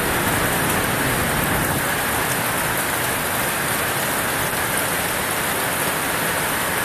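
Heavy rain pouring down steadily in a thunderstorm downpour, an even rushing hiss with no let-up.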